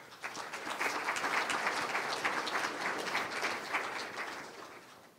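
Audience applauding, swelling up quickly, holding for a few seconds, then dying away near the end.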